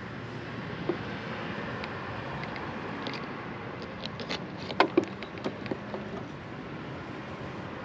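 Steady background hiss with a cluster of small sharp clicks and taps from about four to six seconds in, two louder ones close together near the middle: hands and small tools working the wires of a camper-to-truck electrical connector during soldering.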